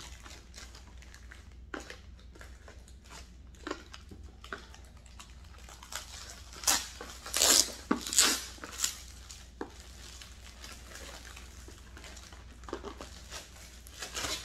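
Clear plastic packaging bag crinkling and rustling in the hands as it is worked off a cardboard box, in scattered bursts with the loudest crinkles about halfway through.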